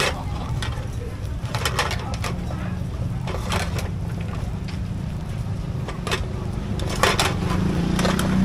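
High-pressure gas wok burner running with a steady low rush under a pan of frying batter, with scattered short clinks and scrapes as the metal pan is tilted and set back on the burner.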